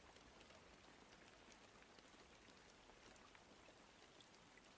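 Faint rain ambience: a steady soft hiss of rain with scattered tiny drop ticks.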